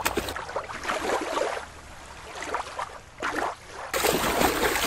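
Splashing in shallow water as a plastic toy orca is dunked and swished about by hand. It comes in bursts: splashes at the start, a quieter stretch in the middle with one short splash, then loud splashing again near the end.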